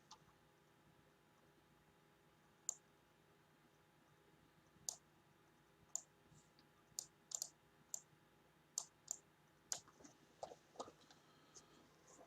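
About a dozen short, sharp clicks at irregular intervals, a few more of them near the end, over near silence with a faint steady hum.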